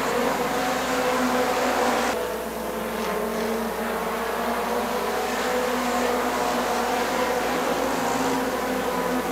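Several dirt-track stock car engines running together at racing speed, a steady buzzing drone of overlapping engine tones. The sound changes abruptly about two seconds in.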